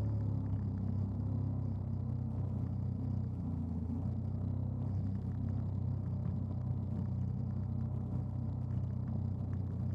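Jet ski engine running steadily at speed, a low drone, with water rushing past the hull.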